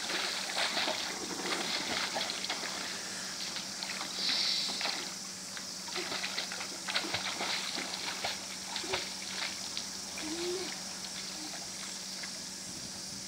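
Swimming-pool water splashing irregularly as a child kicks his legs while holding a kickboard, the splashes thinning out over the last few seconds. A steady low hum runs underneath.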